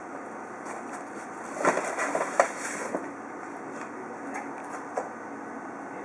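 A few light clicks and rustles, bunched about two seconds in with one more sharp click near five seconds, over a steady background hiss.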